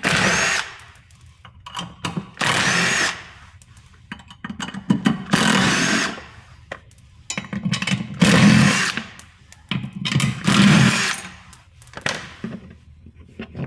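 Power driver with a 10 mm socket spinning off the nuts of a generator's shipping brackets, in five short runs a few seconds apart, with small clicks of handling between them.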